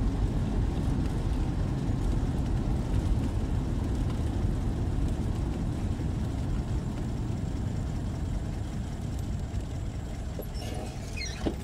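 Steady low rumble of a car driving, heard from inside the car: engine and road noise. A brief high squeak and a short knock come near the end.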